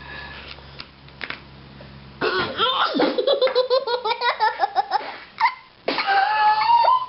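Young child laughing hard in quick repeated bursts, a belly laugh, starting about two seconds in after a quieter start. Near the end comes a long, rising, high-pitched vocal sound.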